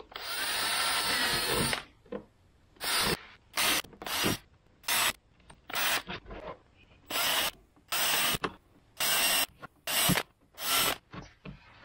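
Cordless drill boring a row of small holes through cracked ATV fender plastic: one run of about two seconds, then about a dozen short bursts, one for each hole.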